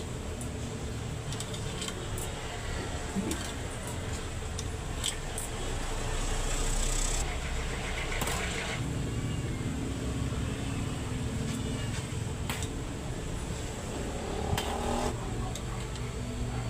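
Engine running steadily, with scattered light clicks and knocks.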